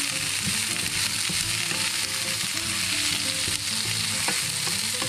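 Diced kohlrabi and onion frying in clarified butter in a pan, sizzling steadily, while a wooden spatula stirs them, with a few light knocks of the spatula against the pan.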